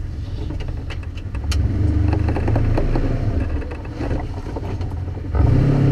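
Off-road vehicle engine running at low speed, with scattered knocks and rattles as the vehicle jolts along a rough trail. Near the end the engine revs up and gets louder.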